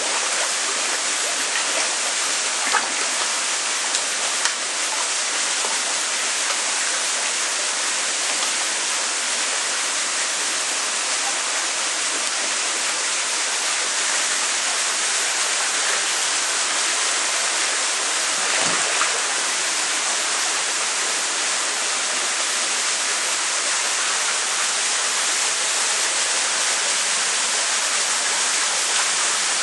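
Steady rushing of water in a koi holding tank, with a few brief splashes from the koi crowding at the surface.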